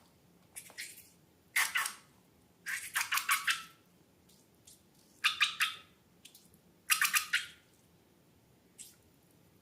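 Slime being squished and kneaded in short bursts of wet, crackling squelches with quick clicks, about six bursts with short pauses between them. The last burst is small, near the end.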